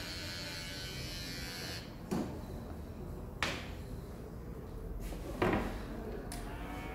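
Cordless electric hair trimmer buzzing, switched off about two seconds in. A few separate short knocks and clicks follow.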